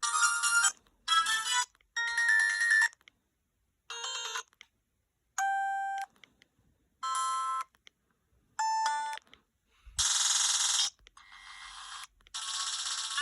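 LG VX6100 flip phone playing a run of short ringtone previews through its speaker, about ten different melodies in turn, each lasting half a second to a second before a short gap and the next one.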